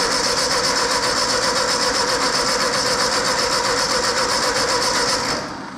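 Ford 8N tractor's starter motor cranking the four-cylinder engine with a steady, fast rhythm and a whine; it is a good sounding starter. The engine does not catch, and cranking stops near the end. The no-start is put down to dirty ignition points.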